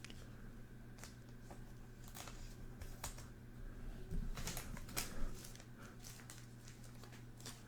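Faint handling of trading cards and their packaging: scattered light clicks and crinkles, busiest about four to five seconds in, over a steady low electrical hum.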